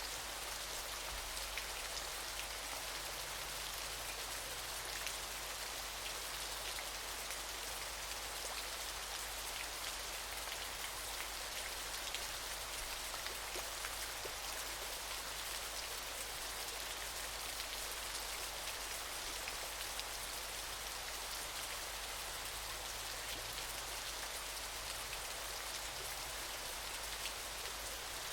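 Steady rain: an even hiss with many small drop ticks scattered through it, unchanging in level.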